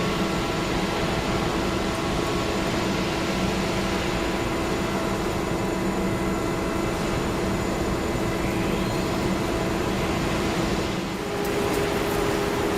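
A CNC boring machine running steadily, a hum with a few held tones over a constant hiss. A faint rising whine comes about eight seconds in, and the hum's pitch changes about eleven seconds in.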